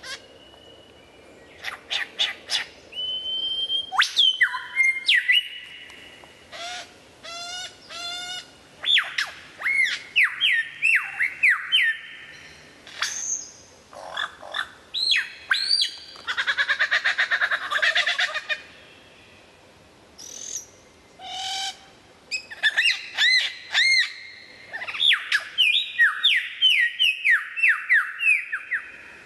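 A male superb lyrebird singing its mimicry song: loud whistles, quick trills and falling notes that change type every second or so. Midway comes a rapid buzzing rattle lasting about two seconds, and near the end a long run of repeated falling whistles.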